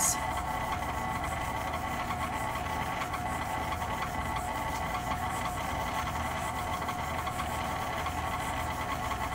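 KitchenAid stand mixer's motor running steadily at low speed, its beater turning through dry powder, an even hum with a few fixed tones.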